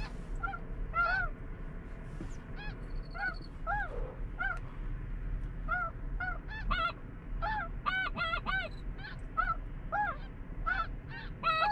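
Snow geese calling: a run of short, high, yelping honks, one every half second or so, coming thicker and overlapping about eight seconds in and again near the end.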